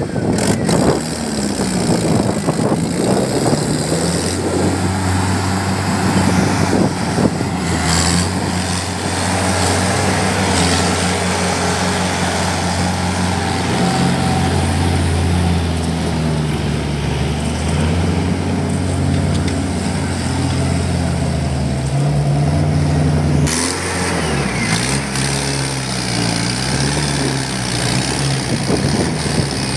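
Mahindra 555 DI tractor's diesel engine labouring as it hauls a loaded trolley through mud, its pitch rising and falling as it revs.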